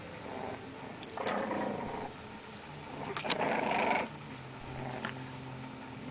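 English bulldog puppies play-fighting and growling, in two short bursts: one about a second in and a louder one about three seconds in.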